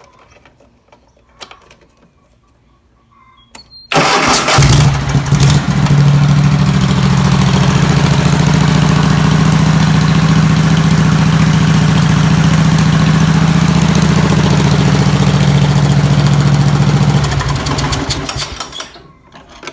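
Zero-turn mower engine started by key through a newly fitted starter solenoid: about four seconds in it cranks briefly and catches almost at once, runs steadily for about thirteen seconds, then is shut off and spins down to a stop. The key start shows the new solenoid works.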